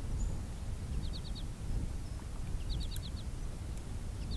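A songbird singing the same short phrase over and over, four or five quick notes each time, about every second and a half, over a steady low wind rumble on the microphone.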